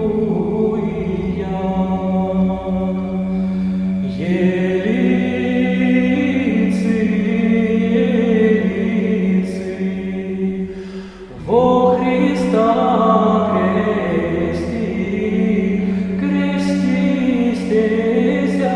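Russian Orthodox choir chanting, several voices moving slowly over a steady held low note. The sound dips briefly about eleven seconds in, then the voices come back in together.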